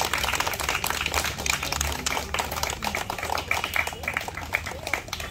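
A group of people clapping by hand, dense at first and thinning to more separate claps in the second half.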